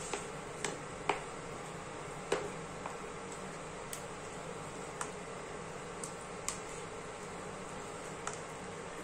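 Spatula stirring and scraping a thick semolina-and-vegetable mixture in a nonstick pan, with about ten scattered light taps of the spatula against the pan. Under it runs the steady hum of an induction cooktop.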